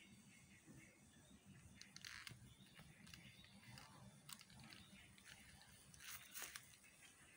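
Near silence: faint outdoor background with a few soft, short crackles or scuffs, the loudest about six seconds in.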